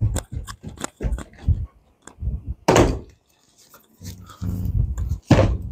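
Footsteps and handling of a large cardboard shipping box, with a series of knocks and a louder noise a little under halfway through. Near the end the box is set down on a desk with a thud.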